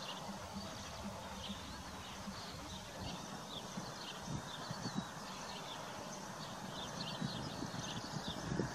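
Horses grazing, with scattered soft low rips and munches of grass a few seconds apart, over steady chirping of small birds.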